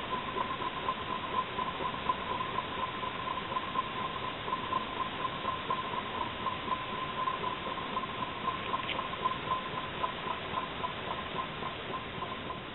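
Small ceramic Stirling engine running, its crank and flywheel making a rhythmic squeaking tick a few times a second over a steady hiss.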